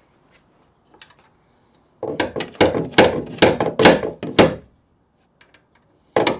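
Hammer blows on a punch driving out a Jeep XJ door hinge pin: a quick run of about ten sharp metal strikes, then two more near the end.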